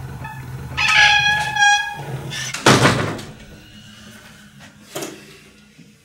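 A door creaking open on its hinges, a squeaky drawn-out creak about a second in, followed by a heavy thud a little later.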